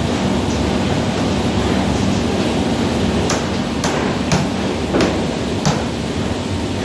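Steady rushing noise of an oak fire burning inside a 500-litre barrel as it is charred, over a low hum. Five sharp knocks come about every half second, starting a third of the way in.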